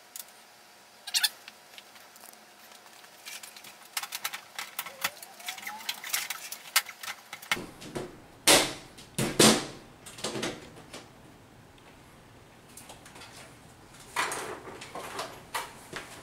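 Knocks, taps and rattles of a ceiling fluorescent light fixture's diffuser cover being swung shut and pressed into its frame. Two loud knocks come about eight and a half and nine and a half seconds in, with smaller clicks around them and another short run of knocks near the end.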